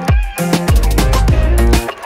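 Background music: a track with a deep, sustained bass line and a steady beat, with a falling bass-drum hit at the start.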